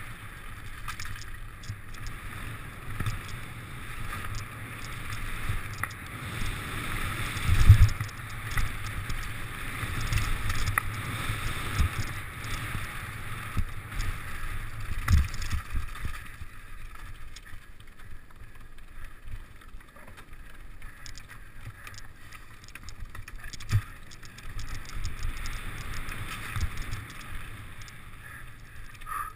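Mountain bike descending a dirt trail at speed: wind buffeting the action camera's microphone over the rumble and rattle of the bike, with sudden thuds as it hits bumps, the loudest about eight seconds in and others near fifteen and twenty-four seconds.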